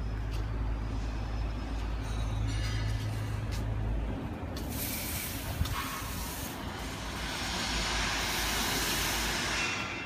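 A large engine running with a steady low hum that drops away about four seconds in, followed by a long hiss from about six and a half seconds that stops just before the end.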